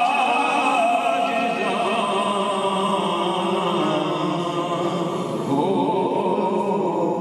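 A group of men's voices chanting together in a sustained, melodic recitation, led by one man singing into a microphone through a loudspeaker.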